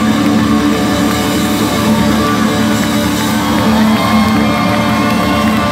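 Live rock band playing loudly, with notes and chords held and ringing, heard from within the audience.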